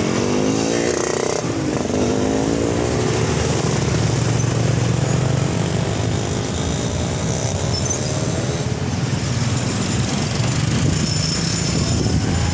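Street traffic passing close by: small motorcycle engines rising and then falling in pitch as they go past, over a steady low rumble of road noise.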